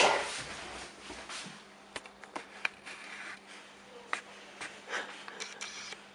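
A dog breathing noisily with wheezy snorts, the loudest a sharp snort right at the start, along with scattered small clicks and knocks.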